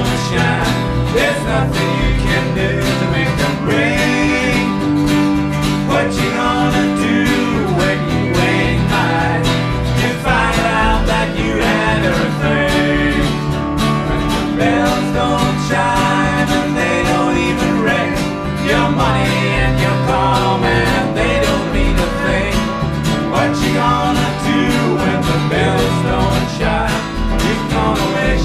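Small blues band playing live: plucked guitars over a steady bass line, with a melody sliding up and down in pitch.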